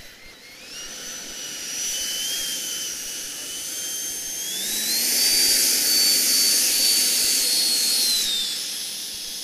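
High-pitched whine of an RC model L-39 jet's engine on its takeoff roll. The pitch steps up about half a second in and climbs again around the middle as the throttle is opened, where it is loudest, then falls in pitch near the end as the jet runs away down the runway.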